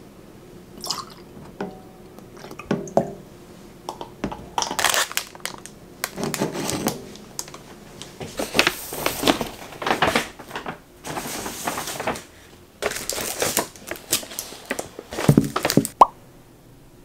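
Soy milk poured from a carton into a glass of coffee, followed by a run of irregular kitchen handling noises: knocks and short noisy bursts. The noises stop a second before the end.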